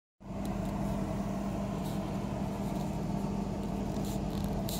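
Steady mechanical hum of a diesel passenger train idling while it stands at a station, a low drone under a constant hum, with a few faint clicks. It begins a moment in.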